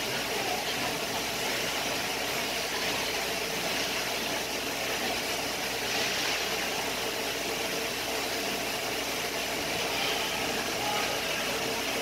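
Steady hum and hiss of an indoor ice rink, with faint scrapes of hockey skates on the ice.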